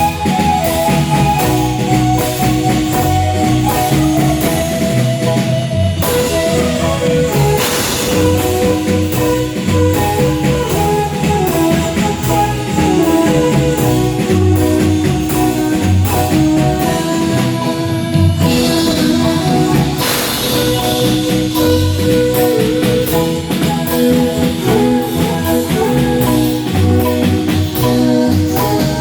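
Marimba band playing: melody on the marimba over drum kit and hand percussion keeping a steady beat.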